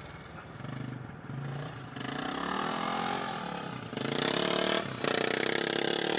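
Motorbike engine revving up and down while mustering cattle. It grows louder about four seconds in and cuts back briefly about a second later.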